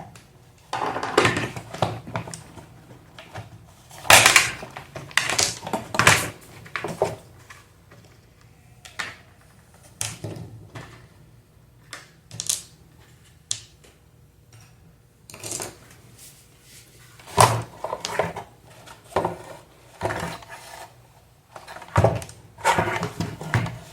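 Irregular clicks, knocks and short scrapes of hard parts and tools being handled as an electric fan is taken apart.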